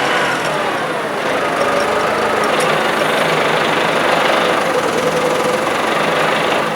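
Old McCormick tractor's engine running steadily, its engine note shifting slightly in pitch as it works.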